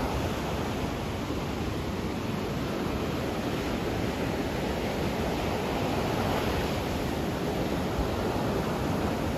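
Surf breaking and washing up on a sandy beach: a steady rush of waves.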